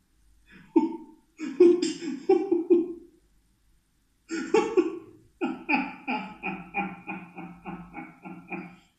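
A man laughing hard in voiced bursts, breaking off for about a second partway through, then going on in a long, even run of short laughs at about three or four a second.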